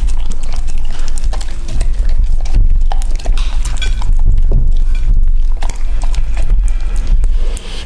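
Close-miked eating sounds of a husky licking and chewing food off a ceramic plate: wet tongue smacks and irregular sharp clicks of tongue and teeth against the plate.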